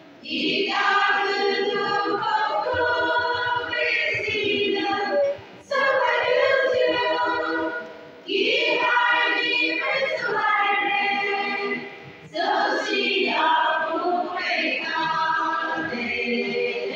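Women's choir singing together, in sustained phrases separated by short breaks for breath every few seconds.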